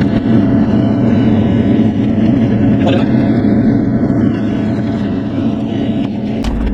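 Bobcat E42 mini excavator's diesel engine running steadily under working load, with a few faint clicks and knocks over it.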